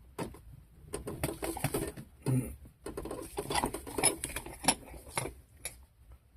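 Irregular clicks, knocks and scrapes of a smart ring being squeezed in a bench vise, the ring's shell not popping open.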